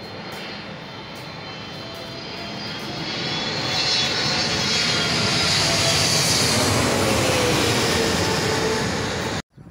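Twin-engine wide-body jetliner passing low overhead on landing approach with its gear down. The jet engine noise swells over the first few seconds and stays loud, with a whine whose pitch falls as the plane goes by. It cuts off suddenly near the end.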